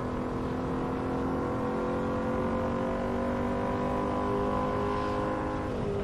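Royal Enfield Continental GT motorcycle engine running at steady cruising speed, its pitch creeping slowly upward and then dropping near the end, with wind rush on the microphone.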